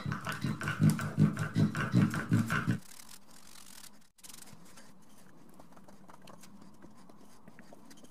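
Hands rubbing quickly back and forth over a strip of vegetable-tanned leather on a wooden table: a rhythmic scrubbing of about five strokes a second that stops about three seconds in, followed by only faint light rubbing.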